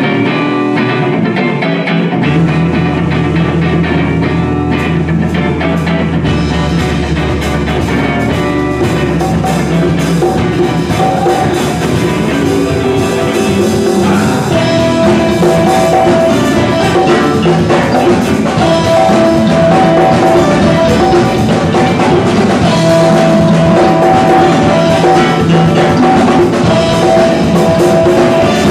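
Live R&B band playing loud through a PA: electric guitar, bass, drum kit, congas and saxophone. The bass comes in about two seconds in and the drums and cymbals join about six seconds in, with the saxophone carrying a melody in the second half.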